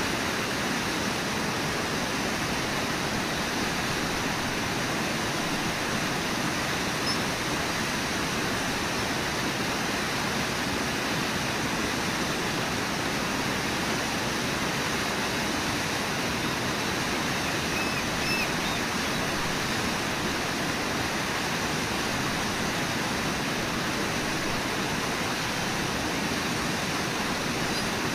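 Steady rush of a river's white-water rapids and low waterfall, an even roar of falling and churning water that never changes.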